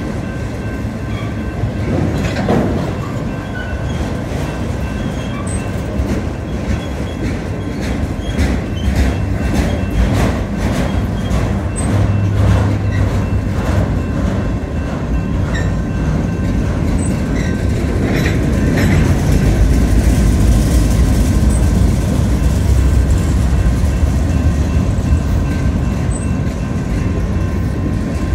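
Union Pacific manifest freight train's cars, autoracks then covered hoppers, rolling past close by: a steady rumble of steel wheels on rail with runs of clickety-clack as the wheelsets cross rail joints, the rumble getting louder after the middle.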